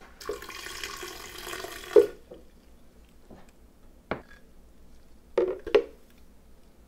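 Water pouring for about two seconds, ending in a sharp knock. Then a few short knocks of kitchenware, the last two close together.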